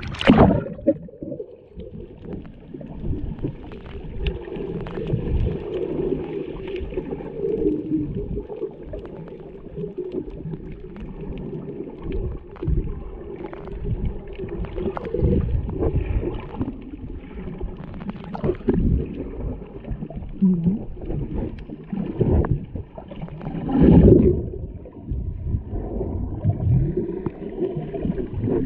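Splash as a GoPro action camera goes under the surface, then muffled underwater noise through its housing: low, shifting water movement and bubbles with irregular louder surges, the biggest about 24 seconds in.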